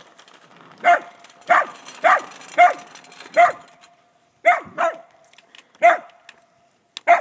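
A dog barking, about nine short sharp barks at an uneven pace with a brief pause midway.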